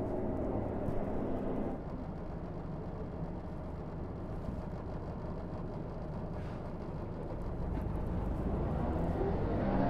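Harley-Davidson LiveWire electric motorcycle under way, with wind and road rumble throughout. A steady electric drivetrain whine fades out about two seconds in. Near the end a whine rises in pitch as the bike accelerates.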